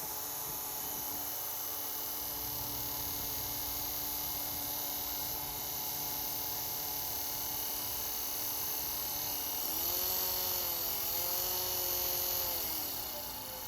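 Small restored Maradyne electric fan running with a steady motor hum and air hiss, plus the leftover noise the owner could not cure after refitting the coil washers, which he suspects are not seated straight. About ten seconds in the pitch rises as the fan speeds up, then falls away near the end as it slows.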